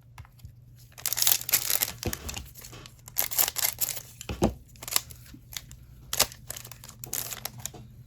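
A foil trading-card pack being torn open and its wrapper crinkled, in a run of rustling tears and crackles starting about a second in.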